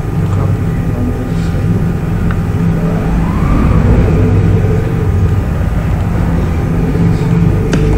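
Steady low rumble of background noise, with a whine rising in pitch about three seconds in and a single sharp click near the end.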